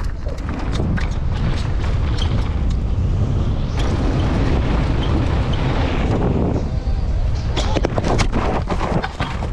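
Wind buffeting a helmet-mounted action camera's microphone as a mountain bike rides downhill at speed, with the bike's tyres on dirt and frequent rattles and knocks from the bike over rough ground. The hiss gets brighter for a few seconds in the middle.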